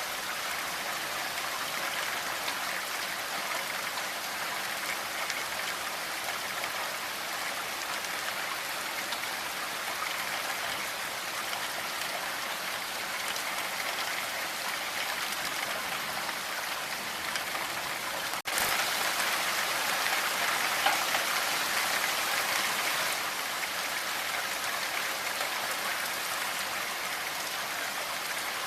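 Steady rainfall, a dense even hiss of falling drops with fine individual drop ticks. About two-thirds of the way through it cuts out for an instant, then comes back louder for a few seconds before settling again.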